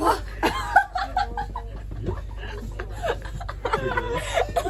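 Several young women laughing and giggling, with a few snatches of talk.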